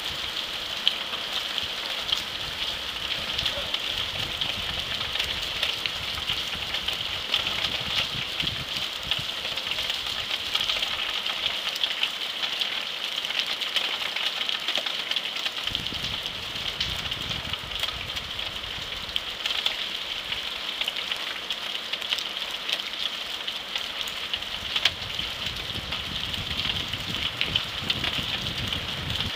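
Torrential rain pelting corrugated roofing: a dense, steady hiss of countless drop impacts.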